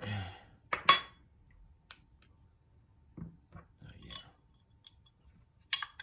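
Small metal alcohol stove being handled and closed up: scattered metal clinks and taps, the loudest about a second in, with a few softer knocks later.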